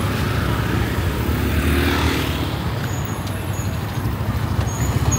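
Urban street traffic: a steady low rumble of passing vehicle engines and road noise, with a few short, high-pitched chirps in the second half.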